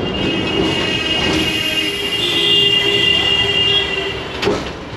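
Kolkata tram car running on its rails, with a high-pitched squeal from the steel wheels on the rails lasting about three seconds over the car's steady running noise. A single sharp knock comes near the end.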